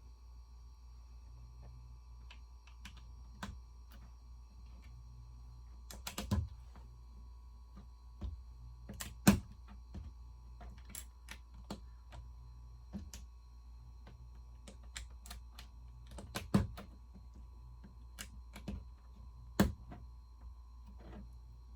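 LEGO plastic pieces clicking and clattering as they are handled and pressed together, in scattered irregular clicks with a few louder snaps, the loudest about nine seconds in.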